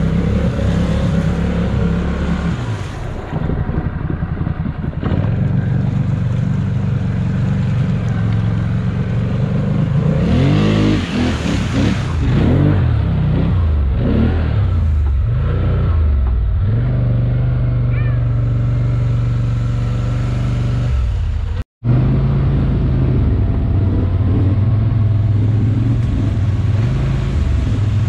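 Mud-rigged ATV engines running loud and revving up and down repeatedly, hardest around the middle. The sound cuts out for an instant about two-thirds of the way through, then an engine runs on at steady revs.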